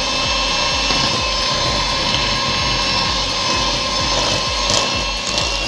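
Electric hand mixer running steadily with a constant motor whine, its beaters churning thick creamed cake batter in a glass bowl as an egg is beaten in.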